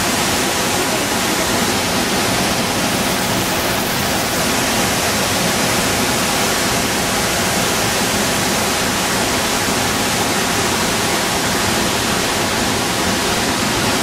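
La Fortuna Waterfall, a tall single plume plunging into its pool: a loud, steady rush of falling water.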